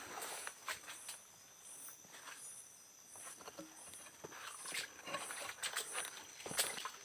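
Faint forest night ambience: insects keep up a steady high whine and a soft chirp repeating about every 0.7 seconds, while irregular snaps and crunches of twigs and leaves underfoot break in.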